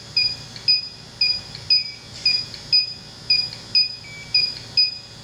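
Electronic refrigerant leak detector, a Bacharach Informant 2, beeping steadily at about two short beeps a second.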